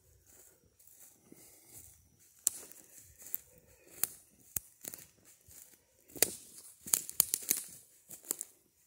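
Footsteps through dry leaf litter on a forest floor, with irregular rustling and crunching and twigs cracking underfoot. The snaps come thickest a little past the middle.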